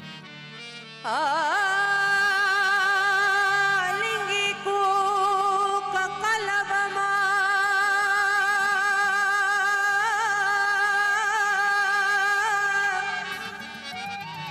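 Sindhi folk song performed live: a woman's voice enters loudly about a second in and sings long held notes with a wide vibrato over a steady low accompaniment, easing off near the end.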